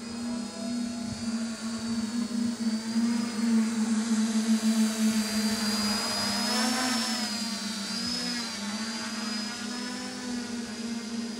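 Radio-controlled model airplane's motor and propeller whining steadily as it flies. It grows louder and the pitch rises then falls as it passes low and close about six to eight seconds in.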